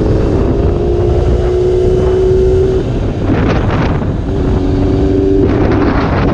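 Sport motorcycle's engine running at a steady cruise, heard from the rider's seat over constant wind rumble on the microphone. The engine tone fades about three seconds in, comes back for a second or so, and gusts of wind noise rise near the end.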